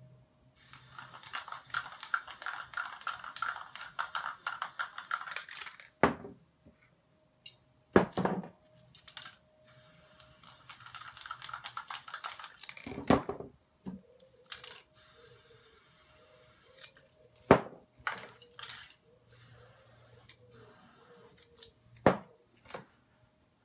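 Aerosol spray paint can hissing in four bursts of a few seconds each, with sharp knocks in the pauses between them.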